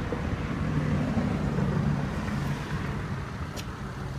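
Steady low vehicle rumble, with a faint hum through most of it and a small click near the end.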